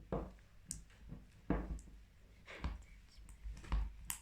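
Slime mixture being stirred in a bowl as it thickens: irregular clicks and knocks of the stirrer against the bowl, about seven in four seconds.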